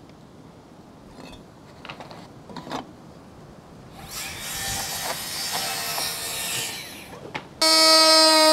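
Handheld oscillating multi-tool starts about seven and a half seconds in with a sudden, loud, steady buzz as it is set against the PVC decking board. Before it come a few light knocks and several seconds of scraping.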